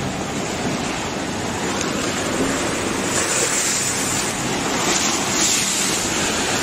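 Tsunami floodwater rushing in a steady, churning rush of water noise, a little louder around the middle.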